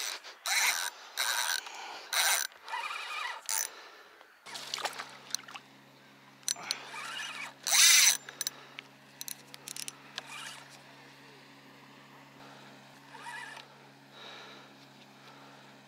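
A run of short scrapes and rustles, louder in the first few seconds. About four and a half seconds in, a steady low motor hum sets in suddenly and carries on.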